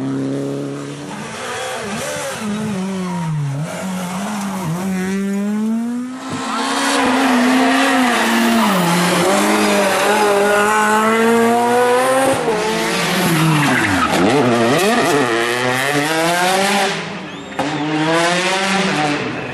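Rally cars at full attack on a stage: engines revving hard and dropping between gear changes and braking, with tyre squeal. The sound jumps abruptly a few times as one car's pass gives way to another.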